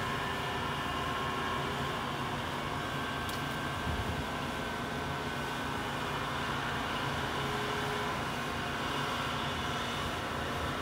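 Weinig R931 profile grinder running with a steady motor hum, with a brief knock about four seconds in.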